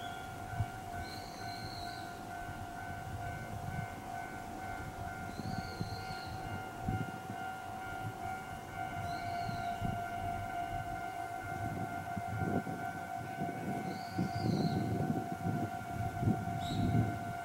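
Japanese railway level-crossing alarm ringing steadily, its electronic bell repeating on one tone. A train's low rumble rises over the second half as it approaches.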